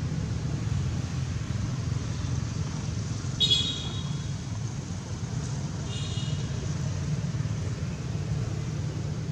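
Steady low background rumble with two short high-pitched tones, the louder about three and a half seconds in and a fainter one near six seconds.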